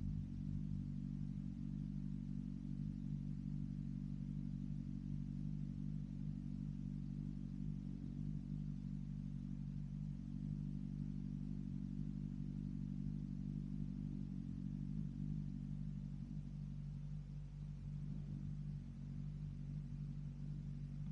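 BMW S1000RR inline-four engine breathing through an M4 exhaust, running steadily as an even low hum that holds nearly the same pitch throughout.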